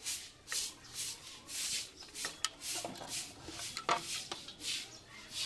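Rhythmic scrubbing or sanding strokes on a part, back and forth at about two strokes a second, each a hissy rasp, with a few light clicks between them.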